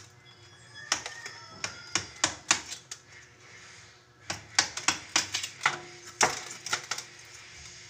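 A run of sharp, irregular clicks and knocks from hard objects, in two clusters: one about a second in, the next about four seconds in.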